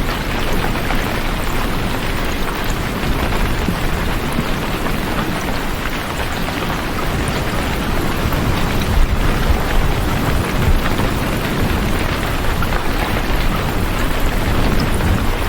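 Steady heavy rain with a low rumble of thunder underneath that swells about halfway through.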